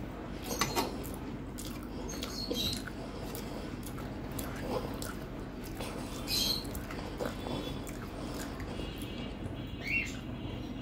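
Close-miked eating with the hand: chewing and mouth noises, with fingers mixing rice on a metal plate and a few short soft clicks scattered through.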